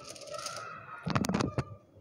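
Metal baking tray clattering as it is handled, with a quick run of sharp metallic clinks a little after a second in.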